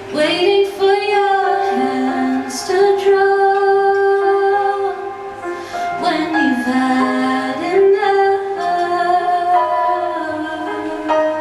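Live pop song: a woman singing long held notes, wavering with vibrato about a second in, over the band's accompaniment.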